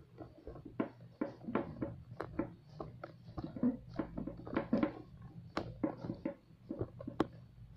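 Handling noise from the recording phone being gripped and repositioned: irregular clicks, taps and rubbing, with a few sharper knocks, the loudest near the end.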